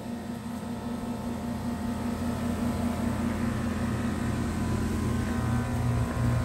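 Newly installed HVAC outdoor unit (heat pump condenser) running after start-up: a steady low hum that starts abruptly and grows a little louder over several seconds.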